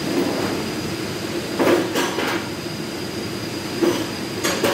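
Metal parts clinking as they are handled and slid onto the shaft of a centrifugal pump during reassembly: three quick clicks about two seconds in and two more near the end. A steady mechanical hum with a thin high whine runs underneath.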